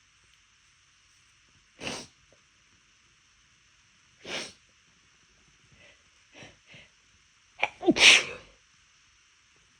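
A person sneezing repeatedly while trying to hold the sneezes back and failing. Two short sneezes come about two seconds apart, a few fainter catches follow, then the loudest, a double sneeze about eight seconds in.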